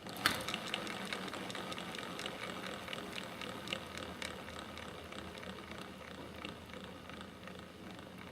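Trex 600e Pro DFC helicopter rotor head and drivetrain spun hard by hand and coasting down, making a dense run of fast clicks that starts sharply and slowly fades as it slows. The owner suspects the front torque tube drive gear assembly, its top and bottom bearings, or the torque tube's umbrella gear.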